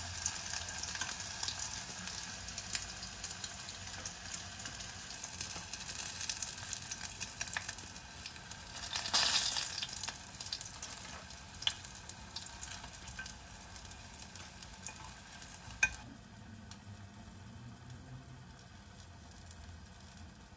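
Flour-coated fish slices frying in a small saucepan of hot oil, sizzling steadily, with a louder swell of sizzling about nine seconds in. A couple of sharp clicks come later, and the sizzle falls away after about sixteen seconds.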